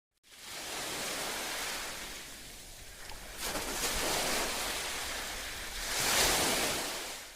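A rushing noise that comes in quickly, swells twice and fades out near the end.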